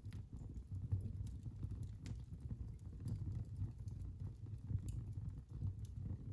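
Wood fire burning in a fireplace: a steady low rumble of flame with scattered sharp crackles and pops from the burning logs.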